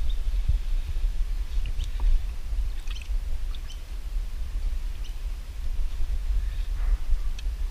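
Low, uneven rumble of wind on the microphone, with scattered short bird chirps in the background.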